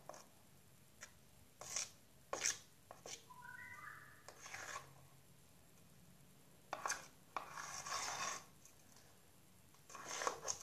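Intermittent scraping and rubbing strokes of a flour, soap and oil slime mixture being stirred in a container, with a brief squeak a few seconds in.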